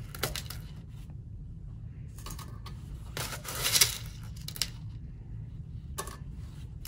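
Small aluminum pellets clinking and rattling as a metal scoopula digs through them in a plastic beaker and tips them onto the balance's weighboat, in several short bursts, the loudest just before four seconds in.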